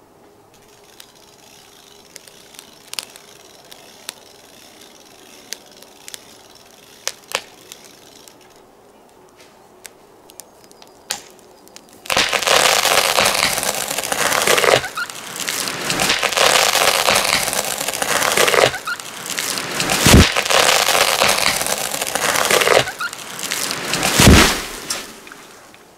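A felled pine giving a few sharp cracks from its hinge wood, then about twelve seconds in a loud, long crashing and rustling of branches with two heavy thuds as it comes down.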